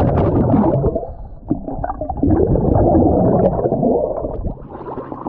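Underwater recording of a scuba diver's exhaled bubbles, a loud gurgling rumble around the camera. It comes in two long rushes, with a short break about a second and a half in, and eases off near the end.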